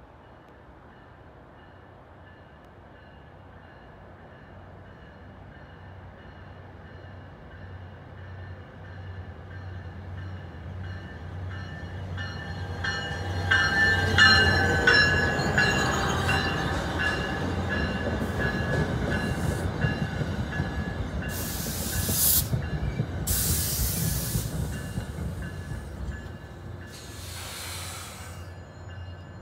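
NJ Transit ALP-45DP dual-mode locomotive running on its diesel engines as it brings a passenger train into the station, growing louder until it passes about halfway through, with wheels or brakes squealing as the train slows. Near the end come three short bursts of air hissing as the train stands.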